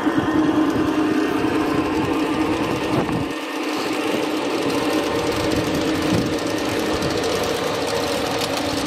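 G-scale model trains running on a garden railway, heard as a steady mechanical hum with a droning tone. The deepest rumble drops out briefly about three seconds in.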